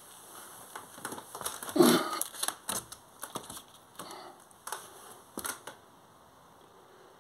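Handling noise: irregular knocks, clicks and scrapes as painted boards and canvases are picked up and shifted about, loudest about two seconds in and stopping after about five and a half seconds.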